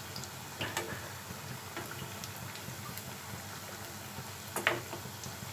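Gram-flour pakoras frying slowly in hot oil in a kadhai: a steady soft sizzle with scattered small crackles, and a sharper pop about a second in and again near the end.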